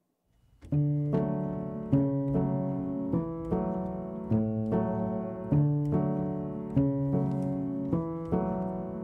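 Background piano music, starting about half a second in, with sustained chords that change every second or so.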